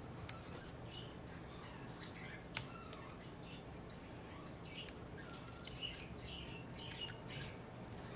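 Pet birds chirping softly and intermittently in the room, with a few sharp faint clicks.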